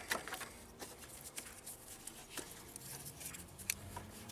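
Scattered small clicks and scrapes of hands working a plastic push-tab fuel-line connector on a diesel fuel filter, trying to free the pipe.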